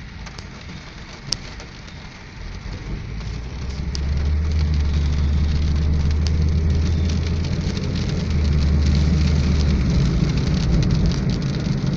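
Rain falling on a moving car, with many small raindrop ticks over a steady low rumble of engine and tyres that grows louder about four seconds in. One sharp click a little over a second in.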